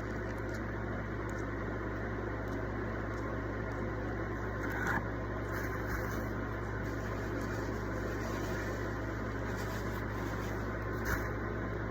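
Steady low mechanical hum, with a few faint short clicks and rustles over it.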